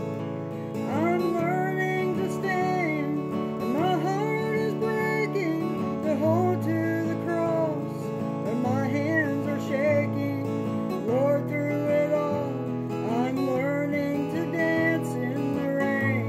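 A woman singing to her own strummed steel-string acoustic guitar, with steady chords under a gliding sung melody that comes in about a second in.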